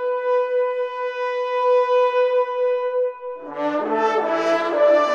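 Ceremonial entrance music: a brass horn holds one long note, and about three seconds in lower notes and swelling accompaniment join it.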